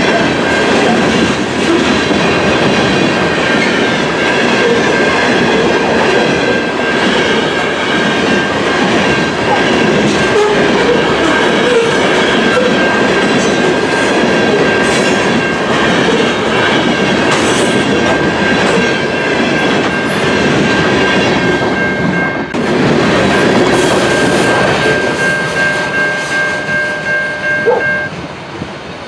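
Loaded potash hopper cars of a freight train rolling past at track speed, with a dense rumble and wheel clatter over the rail joints and a steady high-pitched tone held above it. Near the end the last car rolls away: the clatter turns into separate rhythmic clicks, and the sound drops off.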